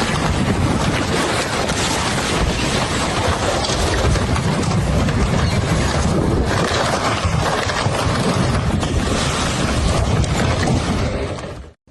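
Loud, steady rushing of floodwater, a dense noise with wind buffeting the microphone, cutting off abruptly near the end.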